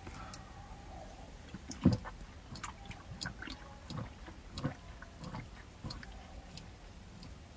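Drinking from a bottle of water: small clicks and liquid sounds, with a soft knock about two seconds in.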